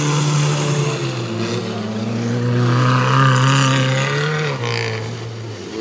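Engines of small hatchback race cars running hard as they drive past on a dirt track. Their pitch shifts, then drops about four and a half seconds in.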